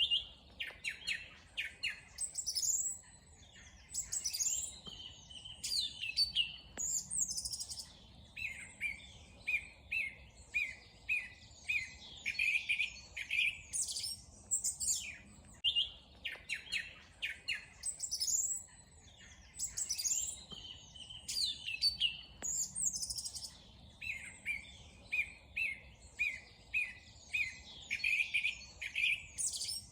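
Small songbirds singing and chirping: quick trills, rapid note series and rising and falling whistles overlap, with much the same phrases coming round again about every fifteen seconds.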